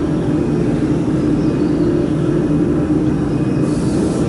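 Steady mechanical drone of workshop machinery or fans running, with a constant low hum. A brief hiss comes near the end.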